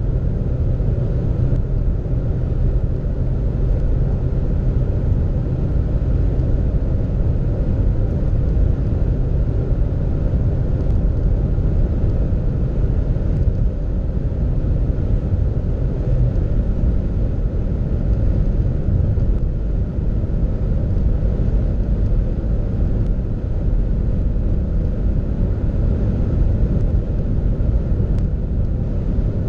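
Seat Ateca's 2.0-litre four-cylinder turbodiesel (150 hp) heard from inside the cabin at full throttle near its top speed, a steady low rumble as the car crawls up past 190 km/h. It pulls at about 4,000 rpm in fifth gear and is shifted up to sixth partway through, dropping to about 3,200 rpm.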